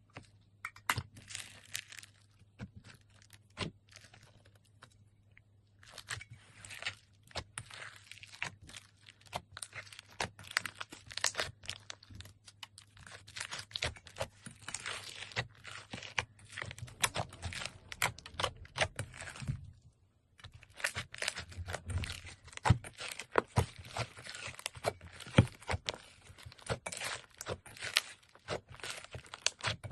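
Slime being squeezed and pressed by hand, giving a dense run of crackling, popping clicks that pause briefly twice.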